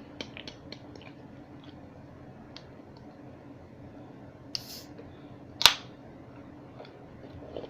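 A person chewing a mouthful of sub sandwich, with soft wet mouth clicks. A brief hiss comes about four and a half seconds in, and a sharp click about a second later is the loudest sound.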